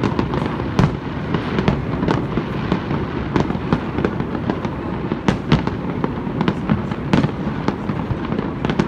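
Aerial fireworks display in full barrage: a dense, unbroken run of bangs, several a second, over a continuous low rumble, with some louder reports standing out.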